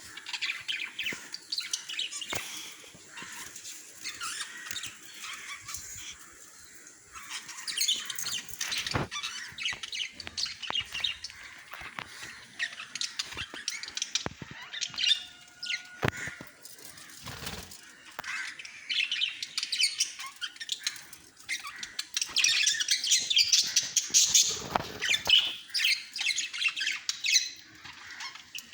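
Small pet parrots kept as love birds chirping and chattering continuously while they eat, louder in spells, with a few sharp clicks.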